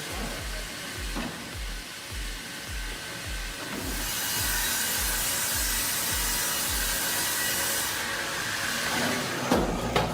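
Sawmill saw cutting through a log, a steady hissing rasp that grows louder and brighter for a few seconds in the middle. Under it runs background music with a regular low beat, and near the end the sound changes abruptly with a few sharp knocks.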